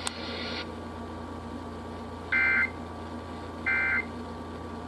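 NOAA Weather Radio end-of-message data bursts (the SAME 'NNNN' code), heard through a GXT67 Pro radio's speaker: two short two-tone warbling bursts about 1.4 s apart, marking the end of the alert. Before them, a brief radio hiss cuts off within the first second, over a low steady hum.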